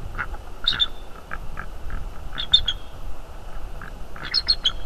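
Short animal calls in three quick clusters, about two seconds apart, with fainter single notes between them, over a steady low rumble.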